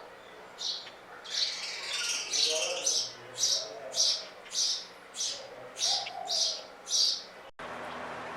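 Small birds chirping: short, high chirps about twice a second, several overlapping for a stretch, with a fainter lower call now and then. Near the end the chirping cuts off abruptly into a steady hiss.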